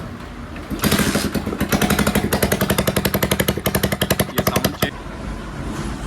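Hero Splendor Plus single-cylinder motorcycle engine running with a rapid, uneven putt-putt from the exhaust for about four seconds, then dropping to a quieter rumble. The uneven note comes from the silencer, whose two mounting bolts have come loose and whose packing is worn out.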